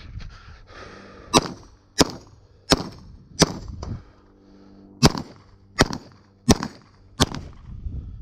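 Rapid gunfire on a three-gun stage: about ten shots in two strings of five, each shot coming about three every two seconds, with a short pause between the strings.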